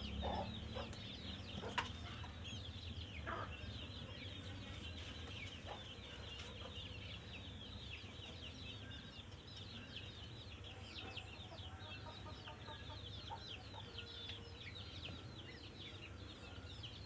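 Many small birds chirping quickly and continuously in short high notes, over a steady low hum.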